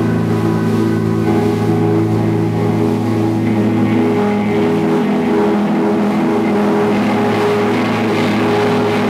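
Amplified electric guitars holding a steady, loud drone of sustained notes, with no drum beat.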